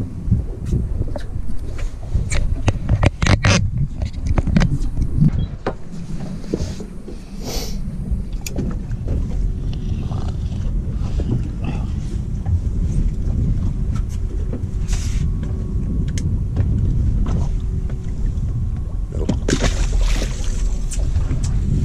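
Low rumble of wind and water around a small fishing boat, with scattered clicks and knocks from gear being handled on deck. Near the end comes a splash as something is dropped into the sea beside the hull.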